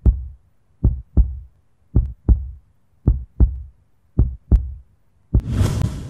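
Heartbeat sound effect: slow, evenly paced double thumps, about one lub-dub a second, five in all. About five and a half seconds in, a louder, longer burst of noise cuts in and fades away over about a second.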